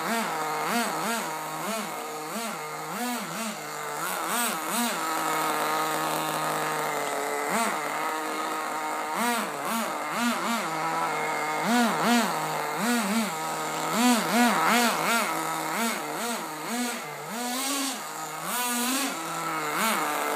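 HSP Warhead 1:10 nitro RC buggy's small two-stroke glow engine revving in repeated short throttle blips, the pitch rising and dropping back one or two times a second over a steadier idle note.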